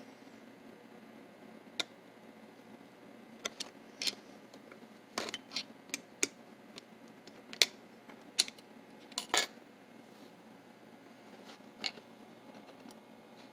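Small metal parts of a mortise lock clicking and clinking as they are handled and set down during disassembly: a dozen or so sharp, irregular clicks, bunched in the middle of the stretch.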